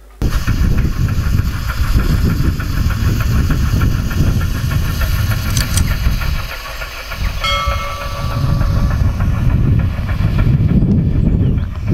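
Wind buffeting the microphone outdoors, a dense rumbling noise that eases briefly midway. There is a short high tone about seven and a half seconds in.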